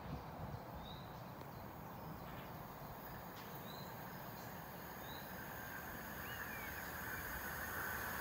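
A small bird repeating a short, rising chirp every second or so over a low outdoor rumble. Toward the end a Class 375 Electrostar electric train, approaching from a distance, grows faintly louder with a rising hum.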